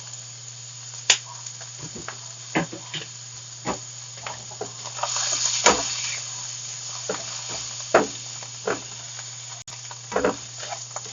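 Mushrooms, onion and garlic frying in oil and butter in a pan, sizzling steadily, with a utensil clicking and knocking against the pan as they are stirred. The sizzle swells for a second or so about halfway through.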